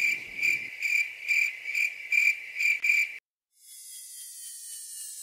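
Cricket-chirp sound effect, pulsing about twice a second, the comedy gag for an awkward silence. It stops about three seconds in, and after a short gap a falling whoosh sweeps in.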